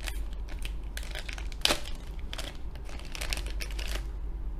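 Plastic toy packaging crinkling as it is handled: a run of short crackles with one sharper crackle about one and a half seconds in, stopping near the end.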